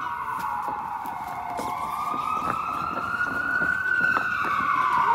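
A wailing siren, its pitch sliding slowly down and then up again in long sweeps, with a few faint knocks underneath.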